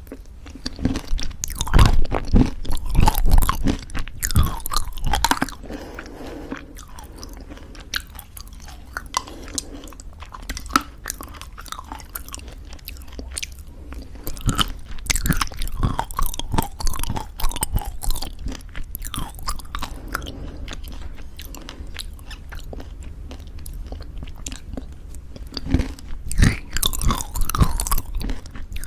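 Close-miked chewing of crunchy homemade granola in thick yogurt: crisp crunches mixed with wet mouth sounds, coming in bouts, loudest in the first few seconds and again near the end.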